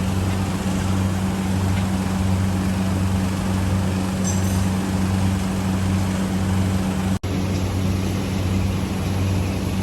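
Automatic folder-gluer for PET plastic boxes running steadily, a constant low hum over a wash of mechanical noise, with a momentary break about seven seconds in.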